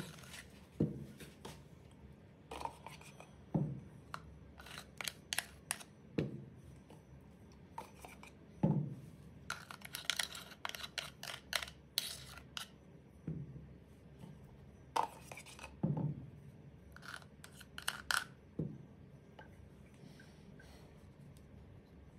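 Serrated metal blade scraping old grease out of a Makita DHR243 rotary hammer's gear housing: irregular scrapes and clicks of the blade against the housing, with a dull knock every few seconds. The scraping stops a few seconds before the end.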